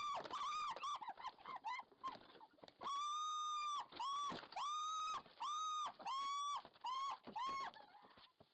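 An animal squealing over and over in high, even-pitched cries, about a dozen of them, each up to a second long with short gaps between.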